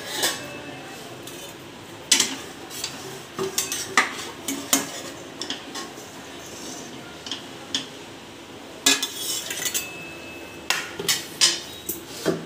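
Stainless-steel kitchenware clanking: a hot steel tiffin box handled in a steel kadai and set down on a steel plate with water. The sound is a string of sharp, irregular knocks, a few of them ringing briefly.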